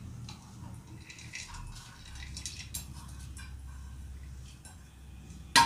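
Washed chana dal tipped from a steel bowl into an aluminium pressure cooker: soft scattered patter and small clicks of the grains dropping in, then one sharp clink near the end.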